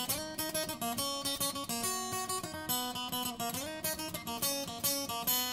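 Intro theme music: a solo guitar picking and strumming a quick run of plucked notes, with a few sliding notes.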